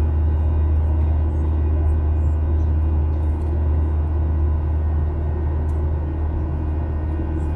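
Cabin noise of a Boeing 737-800 climbing after takeoff: a steady low rumble of airflow and its CFM56 turbofan engines, with faint steady whining tones above it.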